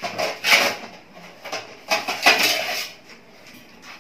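Slotted steel spoon scraping and knocking against a metal kadhai full of thick masala, in several short bursts with the longest scrape about two seconds in, then a quieter spell.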